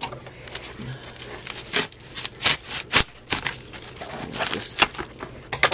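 Padded mailer envelope being handled and pulled open after being slit with a knife: irregular crinkles, rustles and small clicks.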